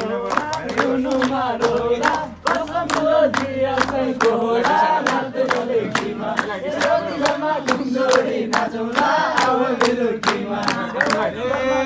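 A group of men singing a Nepali dohori refrain together, with hand claps keeping a steady beat.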